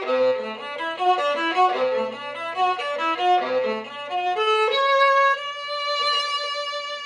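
A 16-inch German Alfred Stingl viola played with the bow: a quick run of notes with a low note sounding underneath, then one long held note from about two-thirds of the way in.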